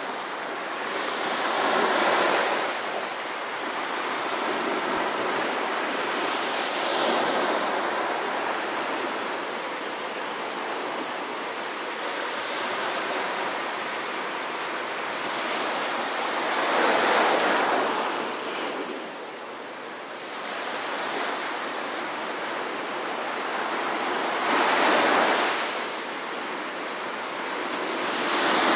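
Small ocean waves breaking and washing up a sandy beach: a steady hiss of surf with four louder surges that rise and fade, several seconds apart, one of them near the end.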